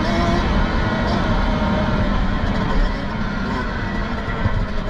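Kawasaki KX65's small two-stroke single-cylinder engine running hard at high revs, with wind noise rushing over the microphone.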